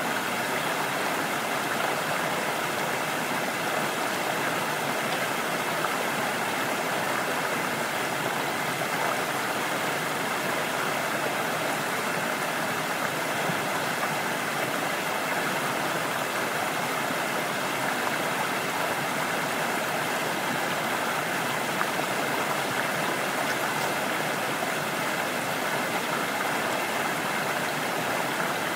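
Forest stream rushing, a steady unbroken water noise without distinct splashes.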